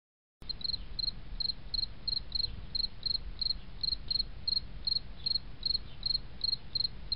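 A short high chirp repeating steadily about three times a second, like crickets, over a low background rumble; it cuts in shortly after the start and cuts off abruptly near the end.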